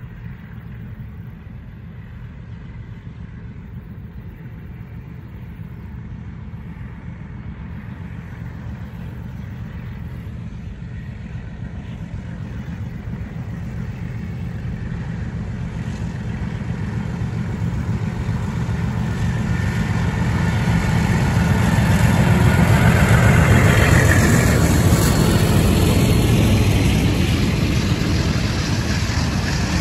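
Diesel locomotive hauling a scrap freight train, its engine drone growing steadily louder as it approaches, loudest about three-quarters of the way through, then easing slightly.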